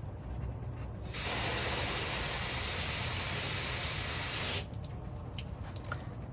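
Liquid spraying from a nozzle in one steady hiss of about three and a half seconds. It starts about a second in and cuts off sharply.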